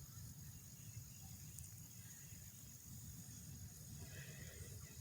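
Faint outdoor night ambience: a steady high insect trill over a low rumble.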